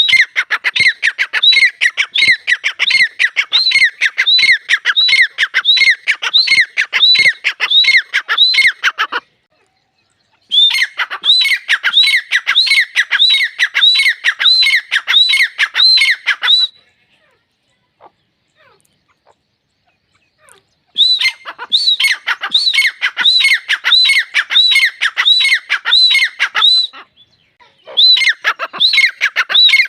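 Grey francolin (teetar) calling: loud, shrill notes repeated about twice a second in runs of six to nine seconds, broken by short pauses.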